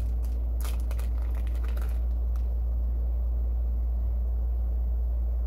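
A steady low background hum, with a few brief crinkles and clicks in the first couple of seconds from a plastic-wrapped wax melt sample being handled.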